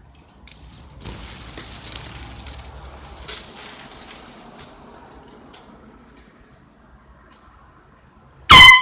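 A soft hiss like running water for the first few seconds, then near the end one very loud, short blast of a handheld compressed-air horn, a harsh pitched blare with a fading echo.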